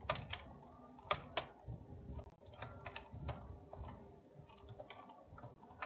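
Computer keyboard and mouse clicks: a few faint, scattered taps as hotkeys are pressed.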